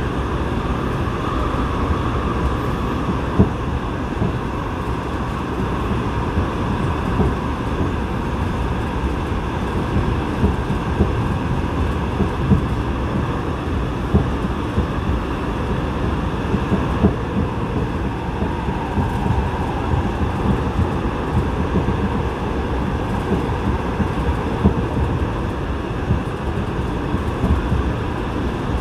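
Subway train running through a tunnel, heard from inside the car: a steady rumble of wheels on rail, with a few sharp knocks.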